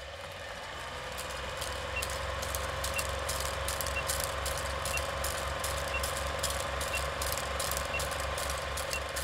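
Vintage film projector running: a steady whirr with a rapid low flutter, film crackle and pops, and a short faint beep once a second with each number of the countdown leader.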